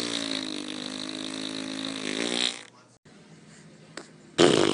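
A long, low, buzzing fart sound effect, sagging slightly in pitch, stops after nearly three seconds. After a short silence and a small click, a second, louder fart sound begins near the end.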